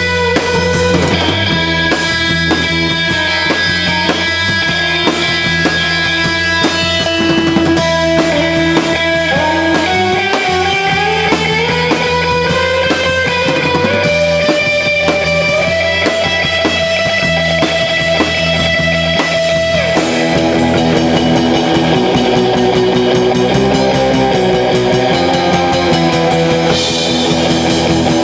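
A live instrumental rock band playing: electric guitars over a drum kit. A long rising slide in the guitar line comes about halfway through, and the playing changes about two-thirds of the way in.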